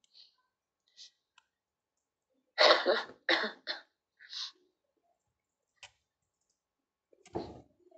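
A woman coughing into her hand: a quick run of three harsh coughs about two and a half seconds in, a smaller one just after, and one more short cough near the end.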